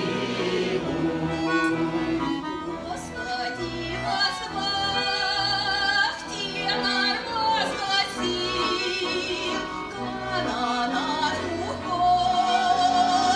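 Background music with a singing voice in wide vibrato over instrumental accompaniment, holding one long steady note near the end.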